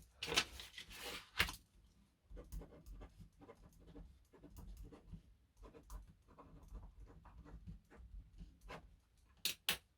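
Handling noise of a flexible-arm helping-hands tool: scattered light clicks and rustles as its parts are moved and set, with a few sharper clicks about a second in and a pair near the end.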